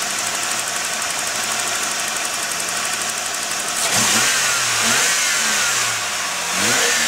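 Holden VG Commodore ute's 3.8-litre V6 idling steadily. From about four seconds in it is revved in three quick throttle blips, each rising sharply and then falling back toward idle.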